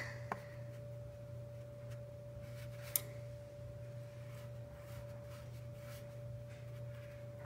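Quiet room tone dominated by a steady, faint high-pitched tone with a low hum beneath it, and a single sharp click about three seconds in.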